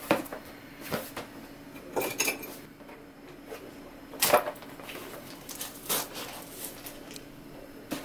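A small cardboard shipping box being handled and cut open with scissors: scattered rustles, scrapes and taps, the loudest about four seconds in.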